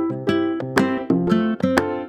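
Background music: a bright plucked ukulele or acoustic guitar playing notes in a brisk, steady rhythm.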